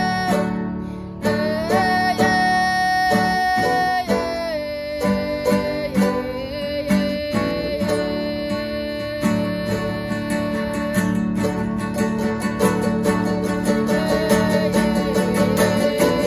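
Traditional Huni Kuin chant (rezo) sung in long held notes that glide from one pitch to the next, over a strummed acoustic guitar and a second, smaller guitar-like instrument. The strumming grows more marked in the second half.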